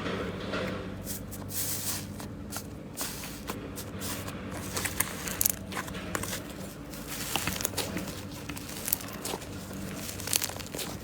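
Slime being squished and worked, giving many small, irregular clicks and crackles over a faint steady hum.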